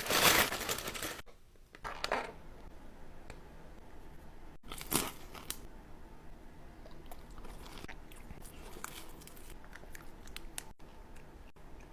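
Close-miked eating: a loud crunchy bite at the start, more crunches about two and five seconds in, then quieter, steady chewing with small wet clicks.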